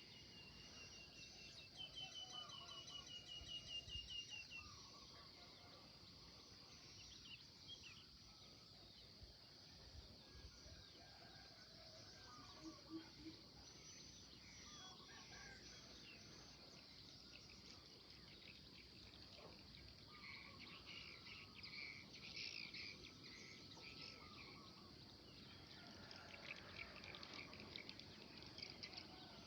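Faint birdsong: several birds chirping and calling on and off over a steady high hiss, with a quick rapid trill about two seconds in and a busier patch of chirps in the second half.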